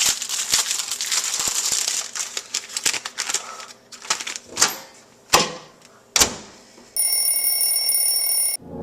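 Bacon popcorn popping in a microwave: quick crackling that thins out to a few single loud pops. Near the end the microwave gives one long, steady, high-pitched beep as it finishes.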